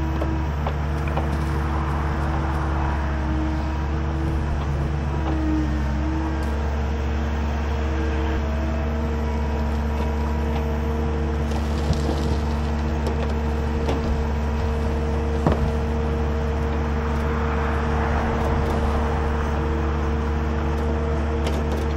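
Caterpillar 310 mini excavator's diesel engine running at a steady speed while the hydraulics swing and lower the bucket, with a rising hiss as the arm moves. A couple of short sharp clicks come about midway.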